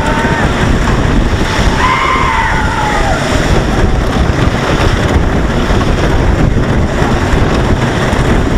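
Lightning Racer wooden roller coaster train rumbling fast along its wooden track, with heavy wind buffeting the microphone. Riders yell about two seconds in.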